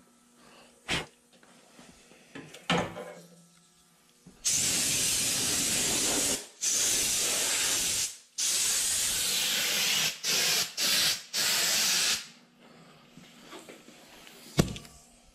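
Compressed-air blow gun hissing in blasts: three long blasts of about a second and a half each, then three short ones. A few brief knocks come before and after, the sharpest near the end.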